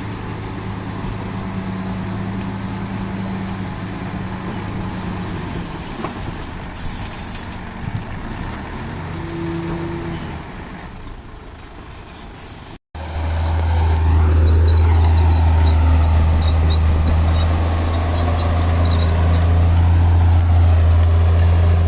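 Heavy diesel engines of earthmoving machines running steadily, with a short hiss about seven seconds in. About thirteen seconds in the sound drops out for a moment, then a louder, deeper-running diesel engine carries on.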